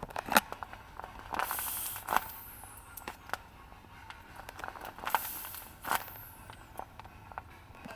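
Handmade paper squishies being handled: the paper crinkles and rustles in irregular spurts, with sharp taps and clicks in between.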